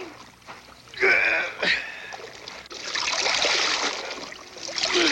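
Water splashing in a seal's breathing hole in the sea ice, with a harpoon line running into the hole, in two loud surges, the second near the end. About a second in there is a brief high call that drops sharply in pitch.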